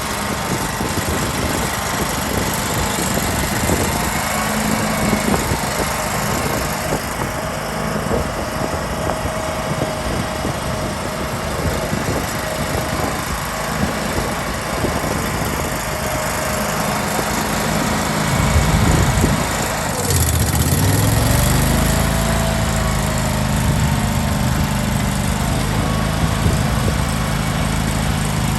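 Toro 23212 walk-behind stump grinder's small gasoline engine running loudly and unevenly. About two-thirds of the way through the pitch dips and climbs back, then the engine runs on at a steadier, even speed.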